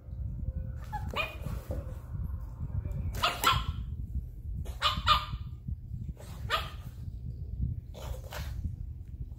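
A dog barking in play, about five short barks spaced a second and a half to two seconds apart, over a low steady rumble.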